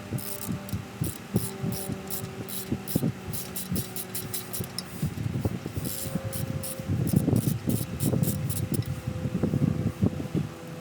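A power driver's motor runs with a steady hum as it backs out the Torx T30 screw that holds the brake rotor, with irregular clicks and, in the second half, heavier rattling and knocking.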